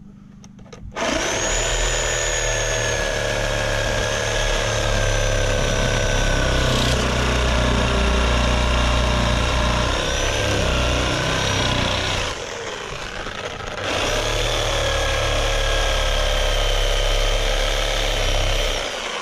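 Chicago Electric reciprocating saw cutting through a weathered wooden post, the motor whining steadily under load. It starts about a second in, eases off for about two seconds past the middle, then cuts again until it stops near the end.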